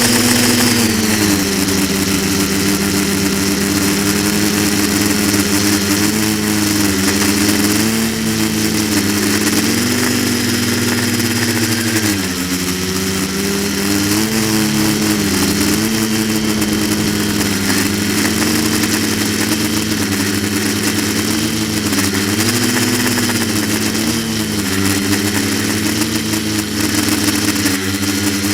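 Quadcopter's electric motors and propellers running in flight, a steady buzzing hum whose pitch rises and falls repeatedly with the throttle. Heard from the Mobius camera carried on the craft.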